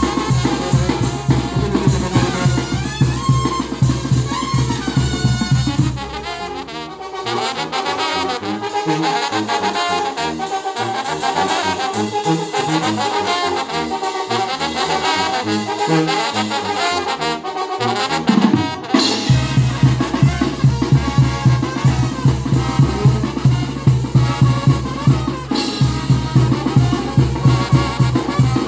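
Banda brass band playing a son: trumpets and trombones over a steady bass-and-drum beat. About six seconds in, the bass and drums drop out and the horns carry on alone. The full band with its beat comes back in a little before the last ten seconds.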